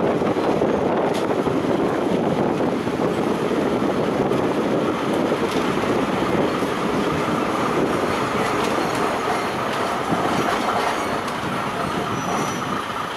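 KiHa 52 diesel railcar running along the line, heard from inside through an open window: a steady rumble of engine and wheels on the rails with faint clicks. A steady high squeal from the wheels joins about five seconds in and grows stronger toward the end.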